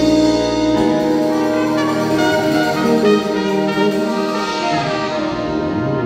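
A live band and small orchestra playing a slow ballad in sustained chords, with brass over strings, flute and a rhythm section.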